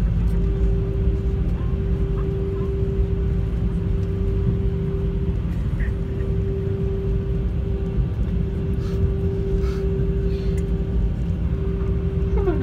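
Cabin noise of an Airbus A320 taxiing after landing: a steady low rumble from the engines at idle and the wheels rolling, with a steady mid-pitched hum over it.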